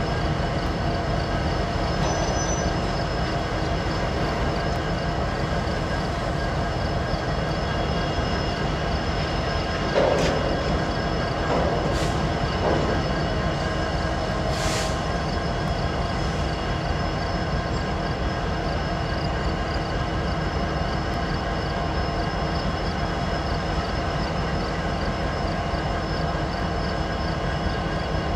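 A lashup of Norfolk Southern diesel-electric locomotives running steadily in a slow-moving freight train, their engine drone continuous. Between about ten and fifteen seconds in come a few metallic clanks and a short hiss.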